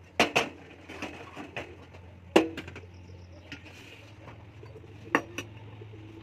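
Aluminium kadai set down on a gas burner's pan supports with two quick metal clanks, then a metal ladle clinking against the pan, once loudly about two seconds in and twice more near the end, over a low steady hum.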